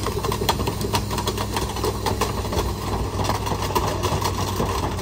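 Rear-loader garbage truck running with its compactor working: a steady engine hum under frequent, irregular clanks and rattles from the hopper.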